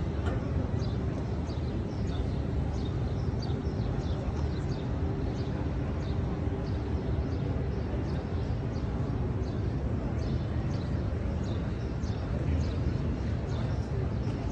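Open-air crowd ambience: a steady low rumble and faint murmur of voices, with many short, high bird chirps scattered throughout.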